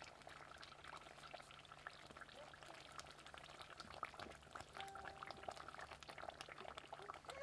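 Faint, fine crackling of thick lasoda curry bubbling in a clay pot over a wood fire, with the fire's own crackle beneath it. In the second half the curry is stirred with a wooden spoon.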